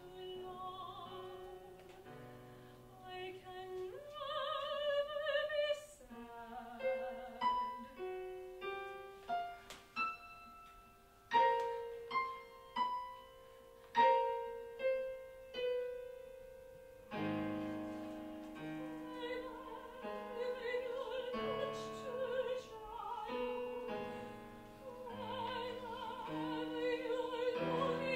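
Soprano singing an opera passage in English with piano accompaniment, the voice wavering with vibrato on held notes over struck piano chords.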